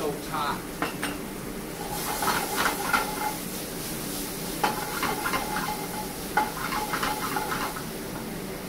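Metal sauté pan shaken and slid on a gas range's grate in three short bouts, the food rattling and sizzling in the pan.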